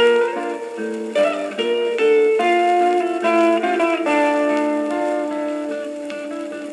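Japanese guitar instrumental playing from a red sonosheet (flexi disc) on a turntable: an electric guitar melody with accompaniment, and no bass. Quick picked notes in the first half slow into long held notes, one sustained through the last few seconds.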